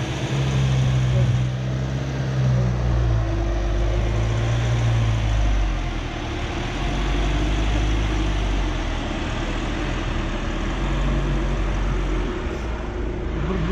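Jeep engine running at low speed on a rocky 4x4 trail, its steady low hum under a broad wash of tyre and trail noise. The engine note eases off about halfway through and picks up again near the end.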